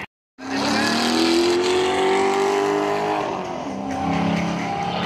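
Drift car engine running hard at high revs. It starts a moment in, its pitch climbs slowly, then drops about three seconds in.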